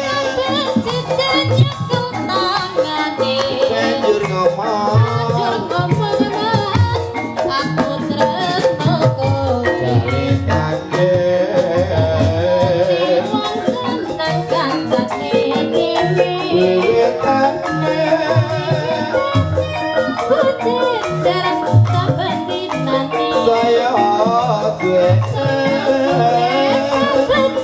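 Javanese gamelan playing ebeg dance music: kendang drum strokes, metallophone bars and gongs, with a female sinden singing a wavering melody over them.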